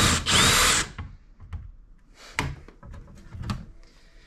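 Power drill boring into a PS5's plastic cover plate to cut a vent hole: two short loud bursts in the first second, the motor whine sliding in pitch as it speeds up and slows down. Light knocks and handling clicks follow.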